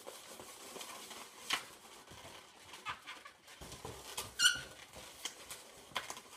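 Latex twisting balloon squeaking and rubbing as it is handled and twisted, with scattered small squeaks and clicks and one sharp, high squeak about four and a half seconds in, the loudest sound.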